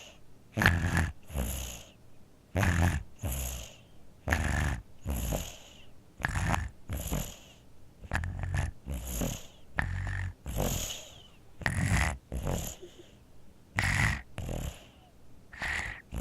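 Sleeping infant snoring through a nose congested by a cold: each breath is a louder snore followed by a softer, breathy one, repeating about every second and a half to two seconds.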